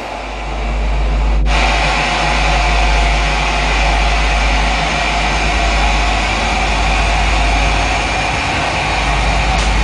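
A loud, steady low rumbling drone with a hiss over it; the hiss thickens about a second and a half in and then holds without change.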